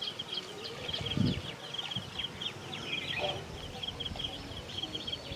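Outdoor ambience dominated by a high-pitched chirping call repeating rapidly, several times a second, with fainter chirps above it and a soft low sound about a second in.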